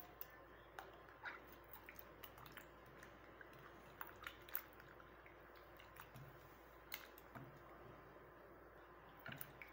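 Faint, scattered wet squelches and small splashes of a hand squeezing and mashing ripe tomatoes in water in a steel pot.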